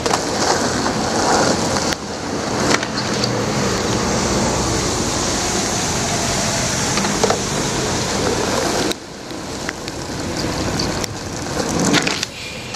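Steady hiss of rain and traffic on a wet street, with a few short sharp knocks. The hiss drops off about nine seconds in and swells again near the end.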